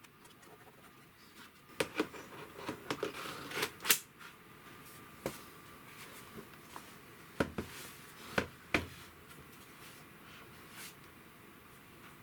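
Scattered light clicks and knocks of hands handling plastic laptop parts: a flurry in the first four seconds, then a few sharper knocks between about seven and nine seconds in.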